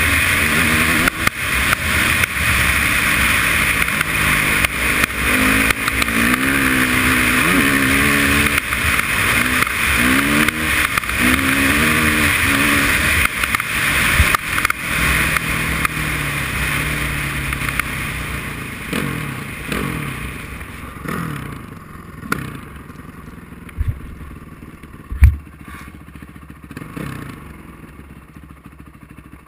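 Honda CRF450R's single-cylinder four-stroke engine revving up and down repeatedly under way, with heavy wind noise on the helmet-mounted microphone. After about eighteen seconds the engine and wind die away as the bike slows, and two sharp knocks come near the end, the second the loudest sound here.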